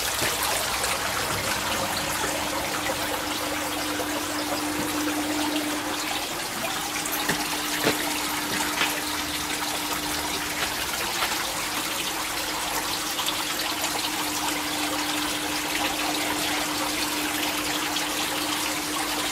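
Recirculating water in an aquaponics system running and splashing into a fish tank, with a steady hum underneath.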